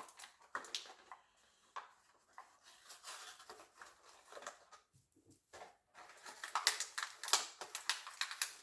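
Crinkling and rustling of plastic packaging with small clicks of parts being handled, as a fuel pump diaphragm repair kit is unpacked; busier and louder for the last couple of seconds.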